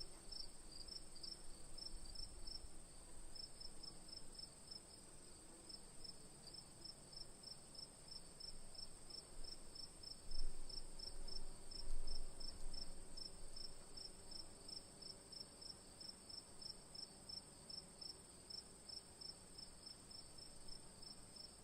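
Crickets chirping in an even rhythm, about two to three short chirps a second, over a steady high-pitched ringing. A couple of brief low rumbles come up around the middle.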